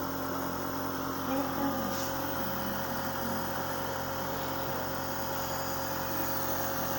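Steady mechanical hum with several constant tones, like a motor or engine running evenly.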